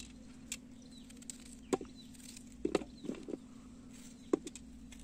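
A small knife slicing pieces of green capsicum held in the hand: about half a dozen short, crisp snaps at irregular spacing.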